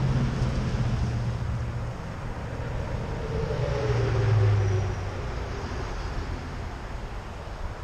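Highway traffic passing: a pickup truck's engine and tyres going by, loudest about four seconds in, with its pitch dropping as it passes, followed by a car.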